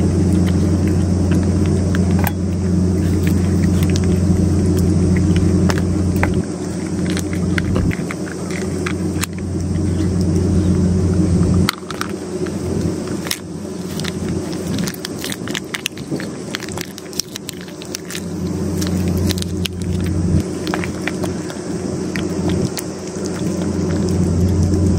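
A cat eating wet food from a metal dish, with many small wet chewing and lapping clicks. Under it runs a steady low hum that drops away about halfway through and comes back strongly near the end.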